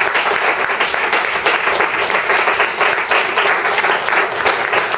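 A small class of students applauding, many hands clapping at once without a break.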